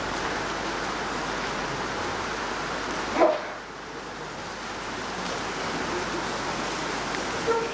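Steady background hiss of a room, broken about three seconds in by one short, yelp-like squeal.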